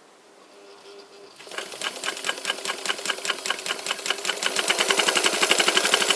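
Phoenix Gloria straight-stitch sewing machine running quiet and smooth. A faint motor hum comes first, then about a second and a half in the rapid, even clatter of the needle strokes starts and builds in speed and loudness.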